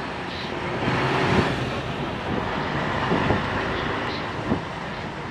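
Running noise of a moving vehicle: a steady low engine hum under constant road and wind noise, with a few light knocks.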